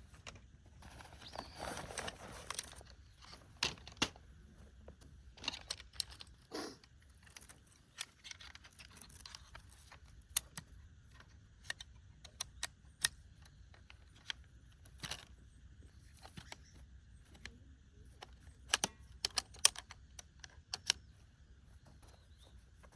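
Scattered small clicks and clinks of hard objects being handled, with a rustling noise about a second or two in and a quick cluster of clinks near the end.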